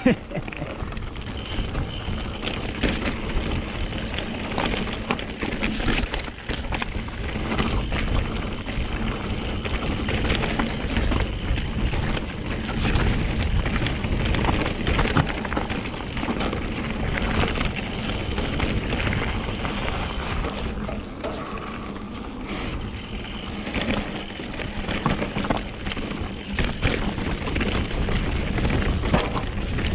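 Mountain bike ridden downhill on a rough dirt trail, heard from a chest-mounted camera: steady wind rush over the microphone and tyre and bike noise, broken by frequent sharp knocks and rattles over bumps and rocks.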